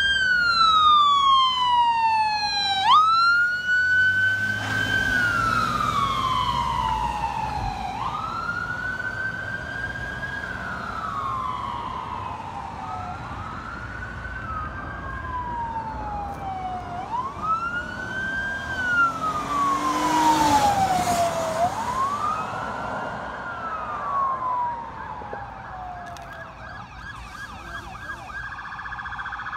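Ambulance siren wailing as the ambulance pulls away, each cycle a quick rise followed by a slow fall in pitch, growing fainter with distance. A different, steadier siren tone starts near the end.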